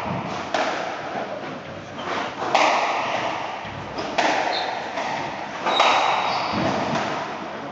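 Squash rally: the ball is struck hard by the rackets and off the walls, four sharp echoing hits spaced about one and a half to two seconds apart.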